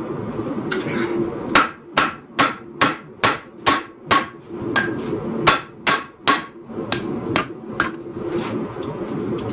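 A 5.7 lb hand hammer striking a hot 52100 steel roller bearing on an anvil: a fast run of ringing blows, about two and a half a second, hardest through the middle and lighter toward the end. A steady low drone runs underneath.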